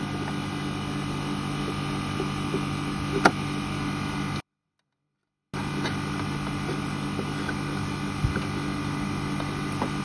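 Carrier outdoor air-conditioning condensing unit running with a steady electrical hum, with a single sharp click about three seconds in. The sound drops out completely for about a second in the middle.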